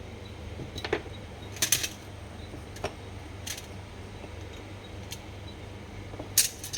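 Small metal reel parts and tools clicking and clinking on a work surface while a baitcasting fishing reel is taken apart. About half a dozen separate sharp clicks, the loudest a little under two seconds in and near the end, over a steady low hum.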